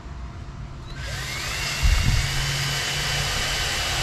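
Power drill with a 1/8 inch bit pre-drilling pilot holes in wood so the screws won't split it. It starts about a second in, its whine rising as the motor spins up and then running steadily.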